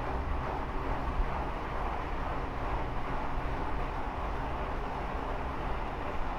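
Steady, unbroken low rumbling drone with a hiss above it, which the recordist takes for a strange atmospheric noise following a very strong thunderstorm.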